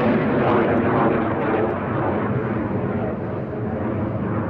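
Jet noise from the Yak-130 trainer's twin turbofan engines as it manoeuvres overhead, a loud, even rushing rumble that eases off a little about two seconds in.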